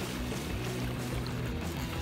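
Background music with held low notes, over a steady hiss of waterside noise.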